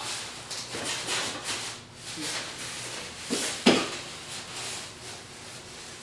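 Styrofoam packing insert rubbing and squeaking against the cardboard box as it is worked loose, in a run of rough scrapes. Two sharp, louder scrapes come a little past halfway, and the rubbing is quieter after that.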